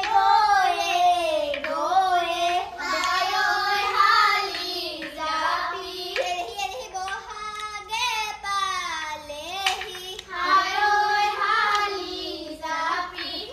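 A child singing a melody in a high voice, with long notes that slide between pitches. There is one sharp clap-like knock about two-thirds of the way through.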